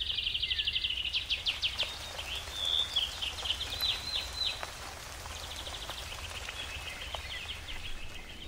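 Birds singing in rapid trills and chirps, loudest in the first few seconds, over a steady low outdoor rumble, with a few faint drips of rainwater.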